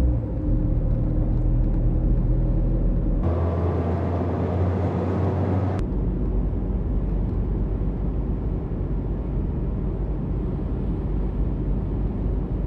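Road and engine noise inside a moving car's cabin: a steady low rumble that shifts abruptly about three seconds in and again near six seconds.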